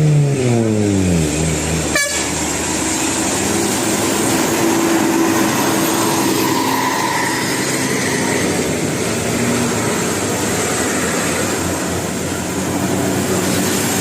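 Musical 'telolet' bus horns sounding over road noise. A loud pitched tone falls in pitch over the first second, as a bus passes, and fainter held horn notes follow. There is a sharp click about two seconds in.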